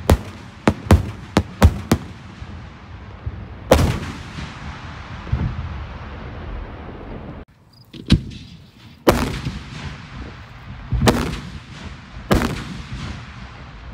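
Daytime aerial canister fireworks shells bursting: a quick run of about seven sharp reports in the first two seconds, then a heavier bang about four seconds in. In the second half come four louder salute booms, each with a long echoing rumble.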